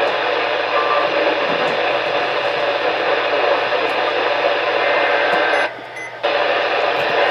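Steady radio static and hiss from a weather-radio receiver between broadcast messages, with no voice on the channel. It cuts out for about half a second near the end, then returns.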